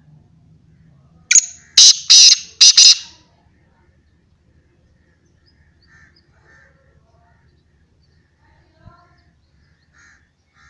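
Black francolin giving its loud, harsh call close by: a quick run of about five grating notes lasting under two seconds, a little over a second in.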